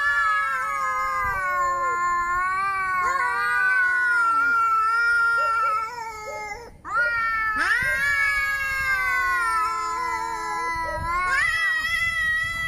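Angry cat yowling: long, drawn-out, wavering howls, the first lasting about seven seconds, then a brief break and a second long yowl.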